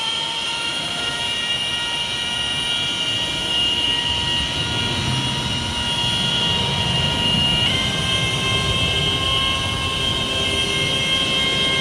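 Battery-powered rotary polisher with a yellow finishing pad running at fairly high speed, buffing polish into aircraft paint: a steady high motor whine. Its pitch shifts slightly about eight seconds in.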